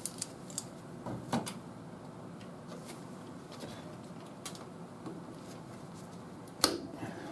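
A Vise-Grip locking welding clamp being set on the edge of a sheet-metal patch panel: a light click about a second in, then a sharp metallic snap near the end as the clamp closes.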